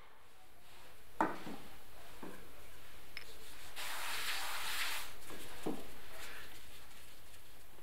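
Hands pressing, rubbing and rolling dough on a floured wooden board: a soft scraping rub that swells about four seconds in, with a few dull knocks of hands on the board.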